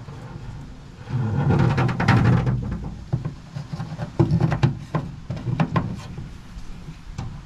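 Handling noise as a plastic 7-pin trailer plug and its wiring are pushed into a hole in the truck bed's sheet metal: a rustling stretch early, then a run of sharp clicks and knocks as the plug is turned and seated.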